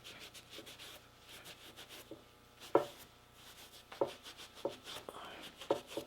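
Acrylic paint being rubbed off the hair of an old deer mount: irregular short brushing and rubbing strokes against the hide, with a sharper knock about three seconds in.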